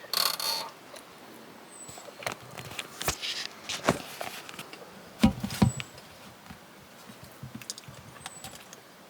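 Close-up chewing and mouth noises as raw chicken is eaten, with scattered irregular clicks and handling sounds. Three faint short high chirps come through behind them.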